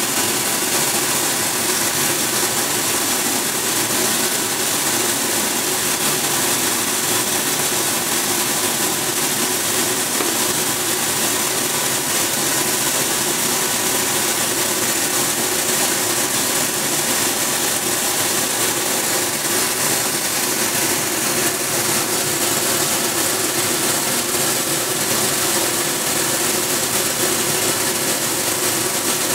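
Optical colour sorter running steadily while it sorts gum arabic granules: a continuous machine hum with a constant hiss over it, unchanging throughout.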